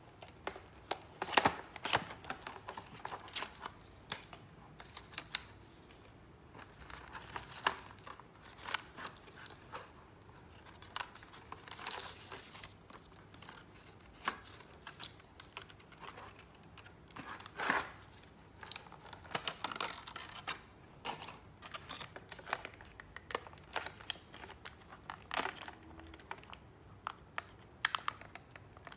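Stiff clear plastic blister packaging and its cardboard insert being opened and handled: irregular crackling, clicks and snaps of the plastic.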